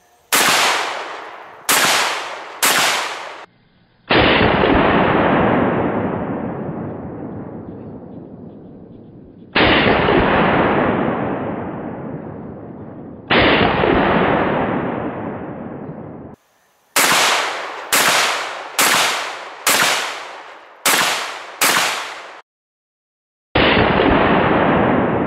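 Mossberg 930 SPX 12-gauge semi-automatic shotgun firing 2¾-inch slugs: three sharp shots at the start, then a rapid string of seven shots a little under a second apart. Between them come several shots played back slowed down, each a deep boom that takes seconds to fade.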